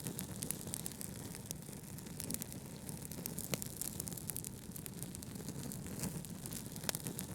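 Wood fire crackling with scattered sharp pops, a couple of them louder, over a steady low rumble of brown noise.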